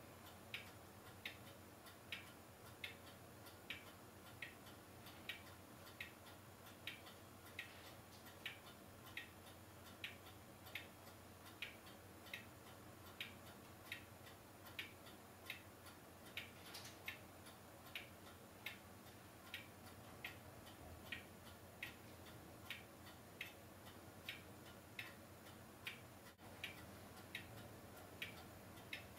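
Faint, even ticking, a little over one tick a second, like a clock, over a low hiss.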